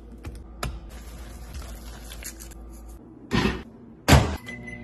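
Light kitchen clicks and taps over a low hum, a short rustling scrape about three and a half seconds in, then a loud clack about four seconds in as a stainless microwave door is opened, followed by a steady high tone.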